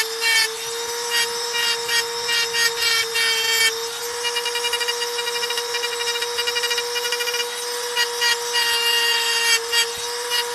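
Handheld rotary engraving tool running with a steady high whine, its bit scratching against dark stone in short, repeated bursts as it cuts lines, with a fast even chatter for a few seconds in the middle.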